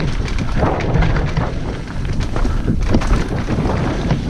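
Mountain bike rattling and knocking over roots on a fast descent, with wind buffeting the microphone: a continuous low rumble broken by many short knocks.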